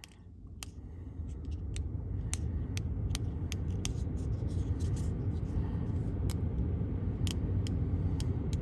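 Low, steady rumble inside the Lincoln Navigator's cabin with the ignition in run, building up over the first two seconds and then holding, with scattered light clicks.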